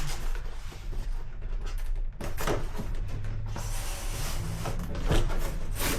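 Cardboard box and packaging being handled while a 12-gauge drum magazine is slid out of it: scraping, with a few sharp knocks, one a little over two seconds in and two near the end.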